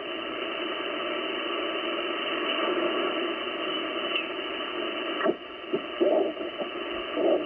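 Icom IC-756PRO HF transceiver receiving on the 10-meter band: steady band-noise hiss from its speaker as the tuning dial is turned, with a few short bursts of signal breaking through after about five seconds.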